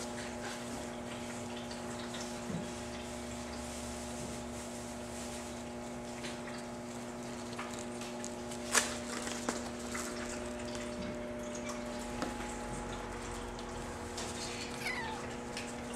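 A room humidifier running: a steady hum with faint watery trickling and dripping. A sharp click comes about nine seconds in, and a kitten gives a faint mew near the end.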